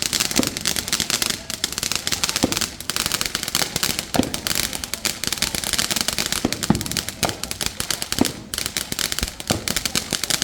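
Fireworks going off in a rapid, unbroken run of sharp bangs and crackles, many per second, with a few louder, deeper pops scattered through it.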